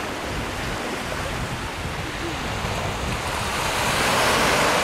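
Low surf breaking and washing up a sandy beach, with wind buffeting the microphone. The wash swells louder about three and a half seconds in.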